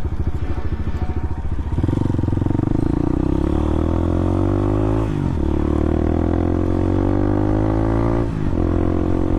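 Bashan 250 dirt bike engine running at low revs, then accelerating from about two seconds in, its pitch climbing through the gears. The pitch dips briefly at two upshifts, about five seconds in and near the end.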